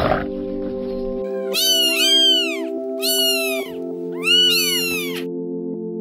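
Three high, arching animal calls, each rising and then falling in pitch, between about a second and a half and five seconds in, over background music with steady held notes.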